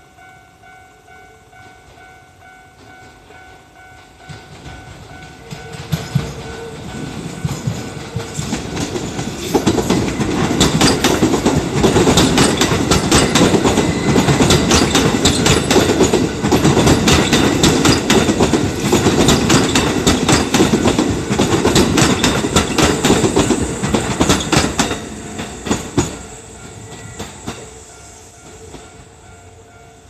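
A Kintetsu express train (1233 and 8400 series electric multiple units) passing close over a level crossing. It builds up, is loudest through the middle with dense wheel clatter over rail joints and points, and fades near the end. A level-crossing warning bell rings steadily under it.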